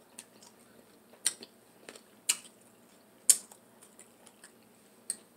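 Close-up eating sounds: four sharp clicks about a second apart, with faint small ticks between them, from utensils and chewing.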